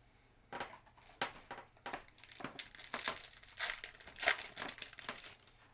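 Plastic trading-card pack wrapper crinkling in the hand, a run of irregular crackles that stops shortly before the end.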